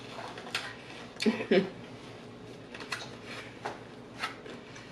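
Close-up chewing of a salad with croutons: scattered crisp crunches and mouth clicks, with two short low mouth sounds about a second and a half in.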